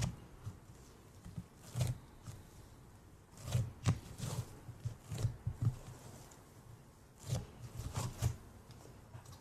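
Fingers poking and squeezing fluffy cloud slime in a plastic tub, giving a string of irregular soft crackles and squishes.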